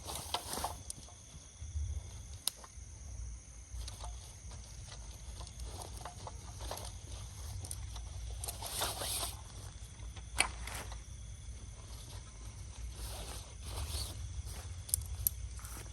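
Outdoor ambience: a steady low rumble, like wind on the microphone, under scattered rustling and a few sharp clicks, with a faint steady high hum.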